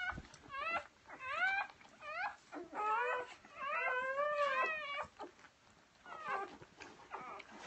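Newborn golden retriever puppies squealing at the mother's belly as they nurse and root for a nipple: a run of short, high, wavering cries, with one longer cry about four seconds in.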